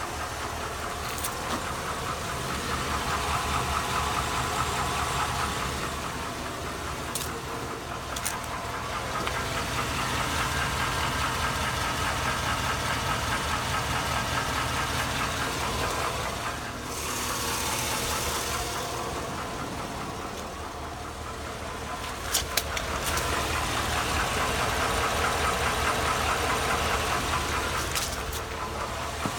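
Chevrolet 5.3L Vortec V8 running with a fast, steady knocking tick, which the owner cannot tell apart as lifter tick or rod knock. A few sharper clicks stand out in the last third.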